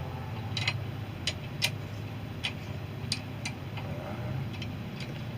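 Microphone and mic stand being handled: a series of sharp clicks and taps at uneven intervals as parts are fitted and adjusted, over a steady low hum.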